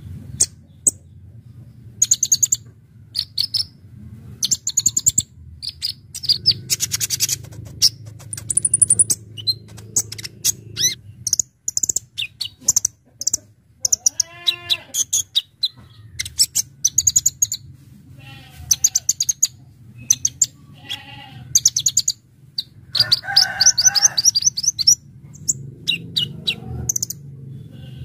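Kolibri ninja (konin) sunbird singing: rapid bursts of sharp, high-pitched chirps and fast trills with short gaps between, over a steady low hum.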